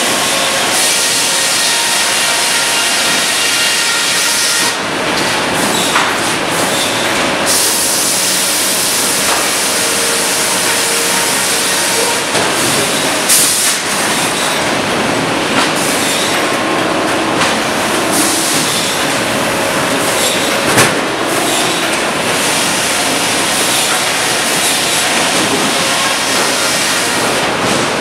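Sawmill headrig running loud and steady: a Cleereman log carriage travelling on its track past the headsaw. Now and then a sharp clank sounds, three times over the stretch.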